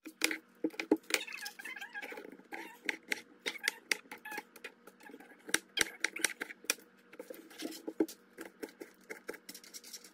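A knife chopping a green bell pepper on a plastic cutting board: quick, irregular taps of the blade against the board, over a faint steady hum.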